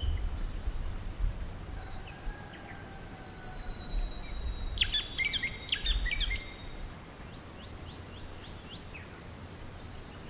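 Several wild birds calling in bushland: thin drawn-out whistles, then a busy burst of high chirps and twitters about five seconds in, tapering to fainter repeated chirps. A low rumble sits under the start and returns briefly in the middle.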